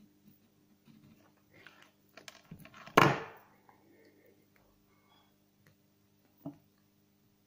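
Quiet rustling and small clicks of fishing line and tubing being handled, then one loud knock about three seconds in as the weighted feeder drops onto its side on the wooden table, and a smaller knock near the end.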